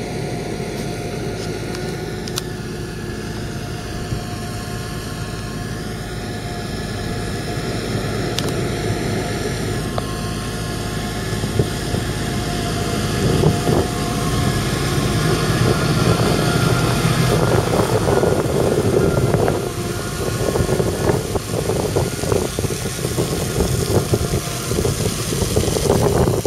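Fendt 927 Vario tractor's 7.8-litre six-cylinder turbocharged diesel running steadily as it pulls a loaded water tanker, growing louder as it comes closer from about halfway through. In the last several seconds a rougher, choppy rushing noise joins the engine as it passes.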